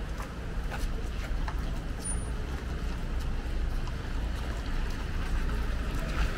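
Road traffic on a city street: a steady rumble of passing cars and tyres, swelling a little near the end as a vehicle comes closer.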